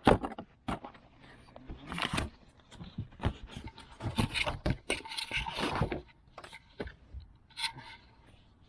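Handling noise of a cabin air filter being moved about: irregular rustling and scraping, with a sharp click at the start.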